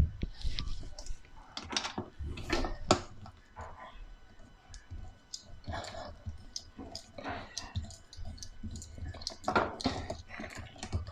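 Screwdriver working a dishwasher mounting screw loose: irregular small clicks and scrapes of metal on metal.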